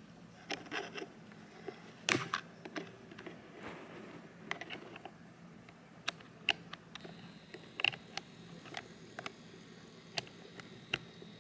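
Handling noise as someone reaches for and fumbles with a charger: scattered light clicks, taps and rustles, with a few sharper clicks, and a faint steady high tone coming in about two-thirds of the way through.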